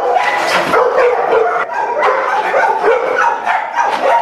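A crated bully-breed dog barking and yipping in a rapid, nearly unbroken string, a show of food aggression at a person close to its bowl.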